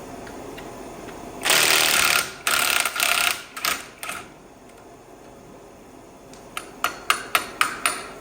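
Power tool at work on the tractor's bell-housing bolts, running in several loud bursts from about a second and a half in. Near the end come about six sharp metallic raps in quick succession.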